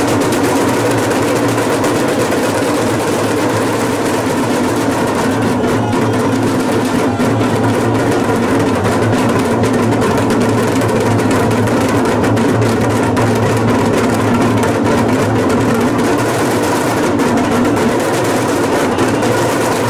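Several large metal damrus (hourglass drums) played together in a fast continuous roll, a dense steady rattle with no break.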